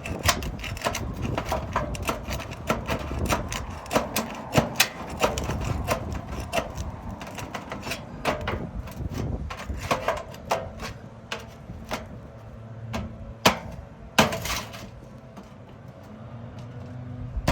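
Hand tools working an old turtleback roof vent loose from the shingles: a string of irregular sharp clicks, taps and knocks, with a short scrape near the end.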